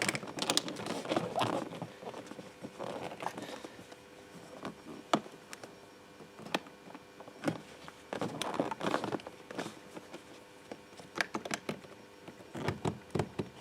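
Plastic handling noise and a scattered series of sharp clicks as a car door's window switch panel is pressed and clipped back into the door trim.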